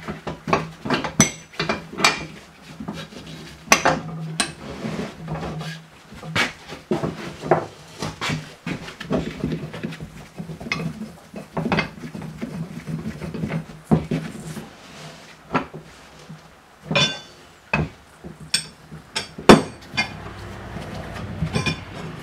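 Irregular metal clinks and knocks as a steel C-frame bushing press and its adapter cups are handled and fitted around a rubber control-arm bushing, some knocks sharp and loud, over a low steady hum.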